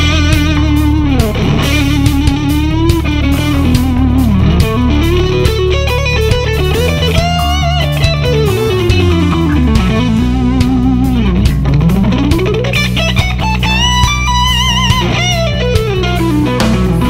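Rock recording: an electric guitar lead played with pitch bends and slides and vibrato on held notes, over bass and a steady beat.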